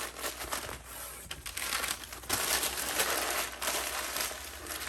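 Packing material and cardboard rustling and crinkling as a shipping box of MDF templates is unpacked by hand, in irregular bursts, busiest in the middle.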